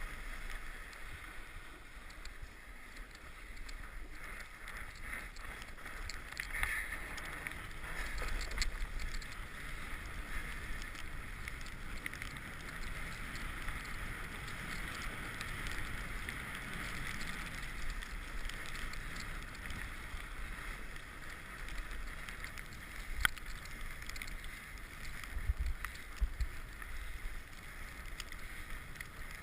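Mountain bike being ridden, recorded by a GoPro: a steady rush of tyre and wind noise with occasional sharp clicks and knocks from the bike, the loudest a little after twenty seconds in.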